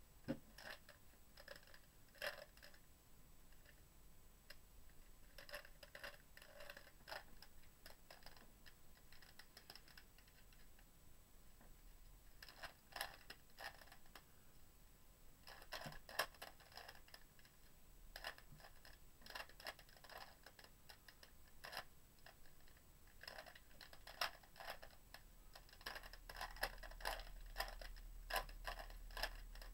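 Shengshou Wind speed cube being solved: its plastic layers click and clack faintly as they are turned, in quick runs of turns broken by short pauses.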